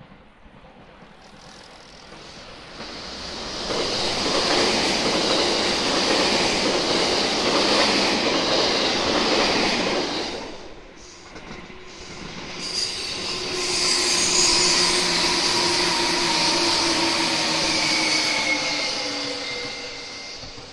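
Two electric commuter trains pass close by one after the other: first a train running past with wheel-on-rail noise, then a 205-series train whose running sound carries several whining tones that fall slowly in pitch as it pulls away.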